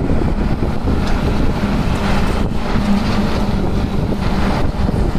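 A moving car heard from inside: steady wind and road noise with a low, even engine hum.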